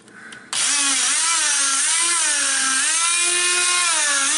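Corded oscillating multi-tool with a triangular sanding pad, switching on about half a second in and running with a steady high whine whose pitch dips and rises as the pad is pressed against the countertop. It is sanding the old sealant residue off the edge of the sink opening.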